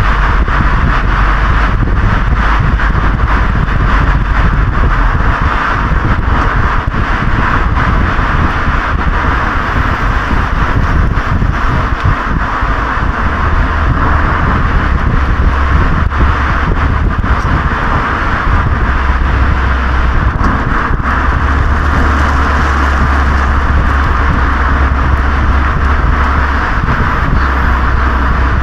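Exhaust note of a Honda Legend KB1's 3.5-litre V6, heard at the muffler of the moving car. It is a loud, continuous low drone that steps up in pitch a couple of times as engine speed changes, mixed with wind noise on the microphone and road noise.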